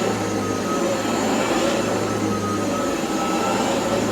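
Hoover ONEPWR cordless vacuum running steadily over carpet: an even motor hum under airflow noise with a thin, steady high whine. It runs pretty quiet.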